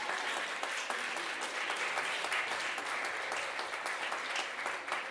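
A crowd applauding: many hands clapping at once in a dense, steady patter.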